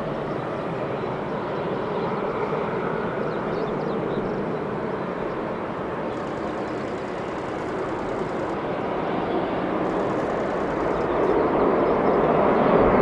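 A Boeing 747-400F freighter's four jet engines at takeoff thrust as it rolls, lifts off and climbs out, a steady rushing jet noise that grows louder near the end as the aircraft nears.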